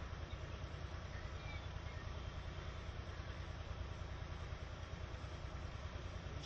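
Steady hiss of falling rain over a continuous low rumble, with no breaks or changes.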